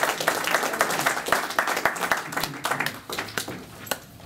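Audience applauding, the clapping thinning out to a few scattered claps about three seconds in and then dying away.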